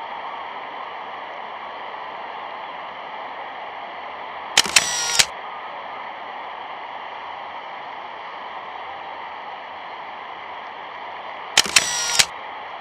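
Steady hiss and hum of an old optical film soundtrack with no narration. It is broken twice, about five seconds in and again near the end, by a short burst of sharp clicks and crackle lasting about half a second.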